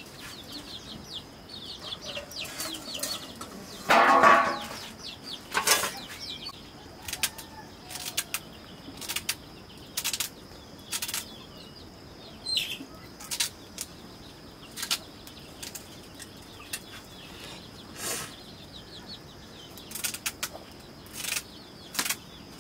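A curved knife cutting through raw pumpkin by hand, making crisp snicks about once a second, with a louder burst of noise about four seconds in.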